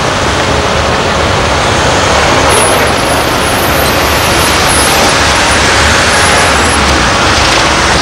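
Volvo A25C articulated dump truck's diesel engine running as the truck drives off, in a loud, steady din of heavy construction machinery.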